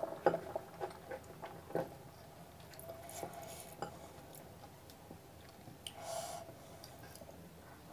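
Fingers tearing a piece of palak puri and dipping it into a bowl of chicken curry: soft, wet handling sounds with a few sharp clicks in the first two seconds and a short hissing burst about six seconds in.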